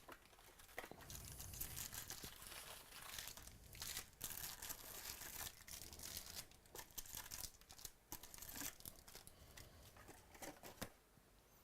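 Foil trading-card pack wrappers being torn open and crinkled by hand, with rapid crackling and tearing that thins out near the end.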